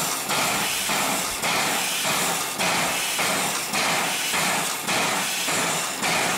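Steam locomotive's steam-driven air compressor (air pump) working, building air for the train brakes. Its strokes give a loud steam hiss that surges about once a second, with a light knock at each stroke.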